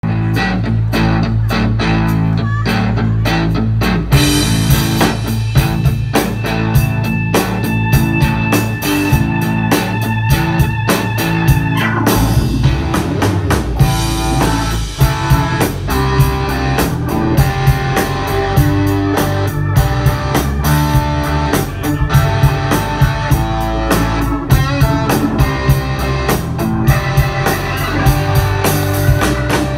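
A live blues-rock band playing an instrumental intro on electric guitars, keyboard and drum kit. Low held notes open the piece, and the drums come in about four seconds in with a steady beat.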